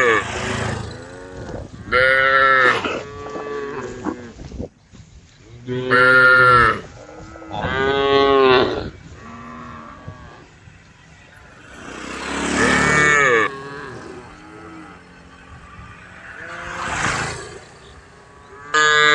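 Cattle mooing: five separate moos, each about a second long, several of them falling in pitch.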